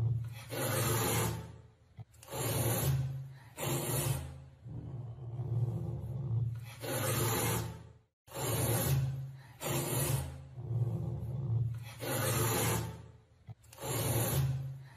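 Caracal growling, a rough growl every second or two over a steady low rumble, with a brief break about eight seconds in.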